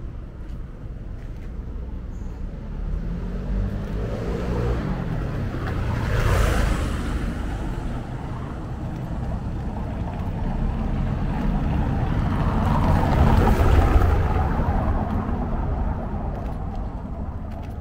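Motor vehicles passing one after another on a narrow cobbled street, their engine and tyre noise swelling and fading twice. The first is loudest about a third of the way in and the second about three quarters through.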